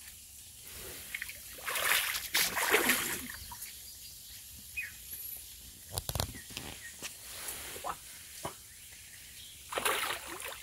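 A hooked catfish thrashing and splashing at the surface of a pond as it is reeled in toward the bank. The splashing comes in irregular bursts: a long one a couple of seconds in, a sharp splash midway, and another burst near the end.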